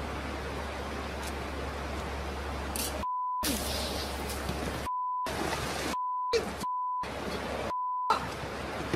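Censor bleeps: five short beeps of one steady tone, each about a third of a second, about three, five, six, seven and eight seconds in, blanking out the soundtrack while they last. Between them runs a steady rush of the river.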